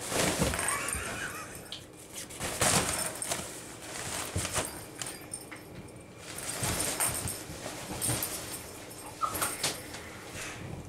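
Nylon cat tunnel rustling and crinkling as a cat scrambles through it and shoves it across the floor, with scattered soft knocks from its wire frame. The sound comes in uneven spells, loudest at the start and again about two and a half seconds in.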